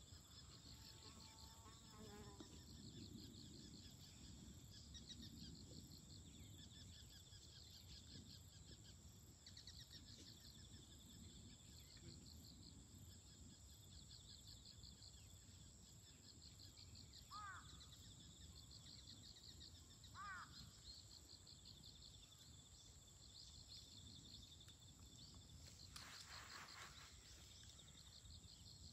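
Faint outdoor ambience of insects trilling in a steady, pulsing chorus. Two short bird chirps come in the second half, and there is a brief rustling burst of noise near the end.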